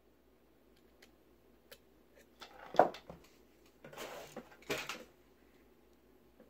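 Small metal clicks and clatter from needle-nose pliers and a clamp screw at a charger's heatsink, the pliers then set down on a workbench. A few faint ticks lead to one sharp click a little under three seconds in, followed by two brief scrapes.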